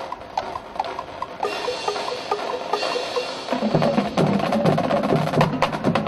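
Marching band music. The percussion plays a regular pattern of short, knocking wood-block-like notes, and a high shimmering wash joins about a second and a half in. About three and a half seconds in, low brass and drums come in with a steady beat, louder.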